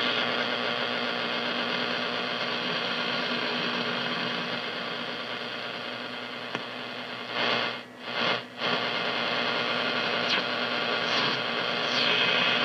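Drake SW-4A shortwave receiver's speaker giving steady static and hiss as the main tuning dial is turned between stations, with a faint low steady hum. About eight seconds in, the noise swells and cuts out twice in quick succession.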